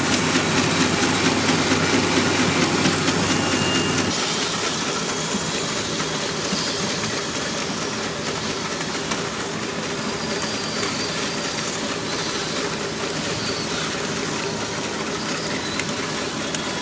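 Paper straw packing machine running: a steady mechanical clatter of rapid fine clicking. It is louder and fuller for the first four seconds, then quieter and even.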